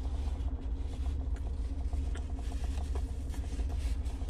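Steady low hum of a car idling, heard from inside the cabin, with a few faint clicks over it.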